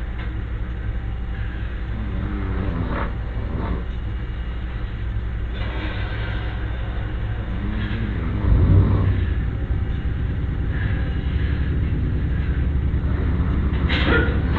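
A man snoring, with a loud low snore about halfway through and fainter breathing snores near the start and end, over a steady low hum.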